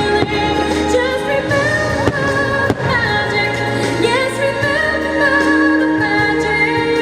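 A fireworks show's soundtrack: a Christmas song with singing and orchestra, loud and steady. A few sharp firework bangs come through it in the first three seconds.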